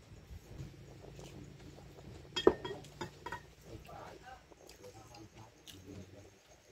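A plate set down on the table with one sharp clink about two and a half seconds in, then lighter clinks of dishes and a metal spoon against a ceramic bowl, over faint background voices.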